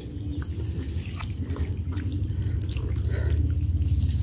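Small splashes and drips of many small fish flicking in shallow muddy water, over a steady low rumble that grows a little louder.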